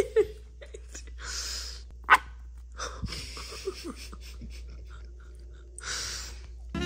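A person breathing out and laughing softly close to the microphone, in three breathy swells with a few short voiced sounds, and a sharp click about two seconds in.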